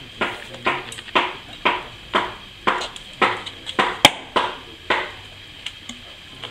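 Fingers tapping on a hollow dried bottle gourd: a regular run of short ringing knocks, about two a second, with one sharper, louder click about four seconds in. The tapping stops about five seconds in, leaving only a couple of faint ticks.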